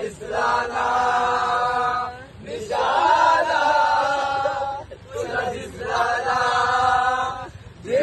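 A group of men chanting together in unison, without instruments: three long held phrases of about two seconds each, with short pauses between.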